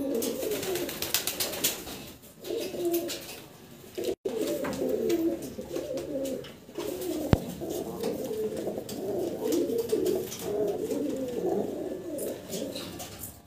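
Domestic pigeons cooing, a continuous low burbling from several birds at once. The sound drops out briefly about four seconds in, and there is a single sharp click about seven seconds in.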